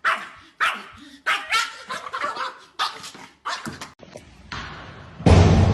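A dog barking over and over, about two barks a second, stopping about four seconds in. Near the end a sudden loud, low rumbling noise cuts in.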